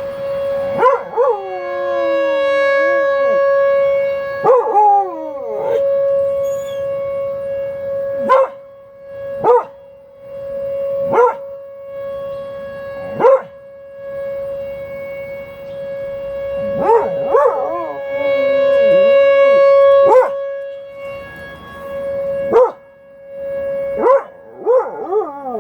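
An outdoor tornado warning siren sounds a steady tone that swells and fades, during its monthly test. A dog howls along with it in long, wavering, falling howls, about a second in, near five seconds and again around 17 to 19 seconds, with short barks between.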